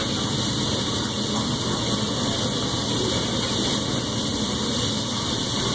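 Steady rushing noise from a teppanyaki grill station: the overhead exhaust hood running over the hot griddle while meat cooks on it.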